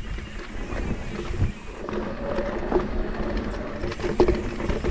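Wind buffeting the microphone of a camera on a moving mountain bike, a steady low rumble, with scattered knocks and rattles from the ride. The loudest knock comes a little after four seconds in.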